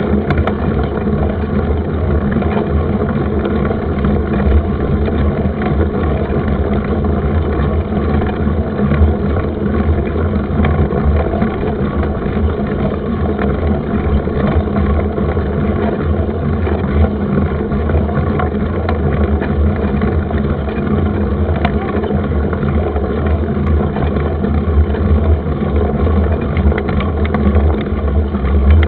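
Steady wind rumble over the microphone of a mountain bike in motion, with light rattles and clicks from the bike on rough ground.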